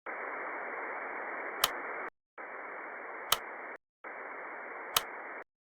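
Three bursts of steady hiss like radio static, each nearly two seconds long with short silent gaps between them, and one sharp tick inside each burst.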